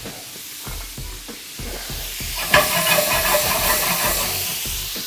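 Potatoes and grape tomatoes sizzling in a hot sauté pan as they are stirred, with a louder surge of sizzling about halfway through. Background music with a soft steady beat plays underneath.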